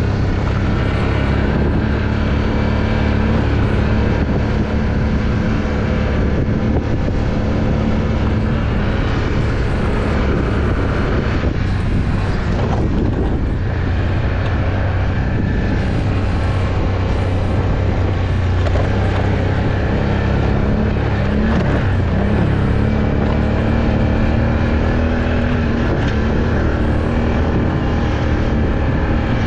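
Can-Am off-road vehicle's engine running steadily while riding, its pitch rising and falling a little with the throttle.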